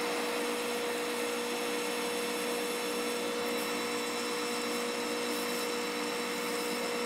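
Metal lathe running steadily while a radius insert cuts a thread-relief undercut in a stainless steel shoulder bolt. There is an even hum with one held mid-pitched tone and no changes.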